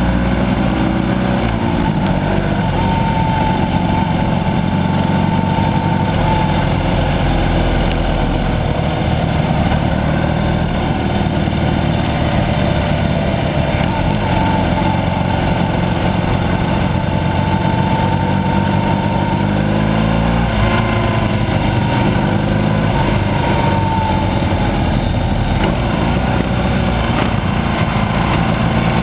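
Onboard sound of a classic BMW racing motorcycle's engine running steadily at an easy pace, its note wavering gently up and down.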